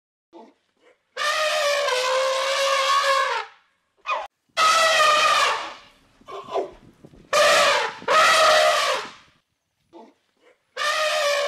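An animal calling again and again: about five long, drawn-out calls, each lasting a second or two, with a few short, quieter calls between them.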